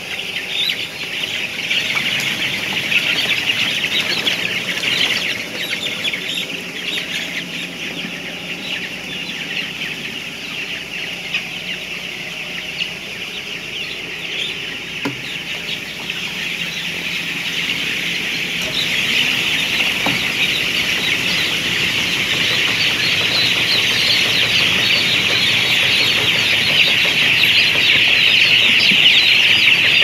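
A large flock of 12-day-old broiler chicks peeping in a dense, continuous chorus of high calls, growing louder over the second half.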